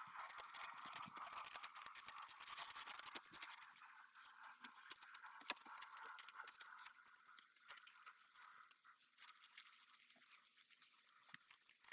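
Faint scraping and clicking from hands-on garden work, over a faint steady hiss that is stronger for the first few seconds.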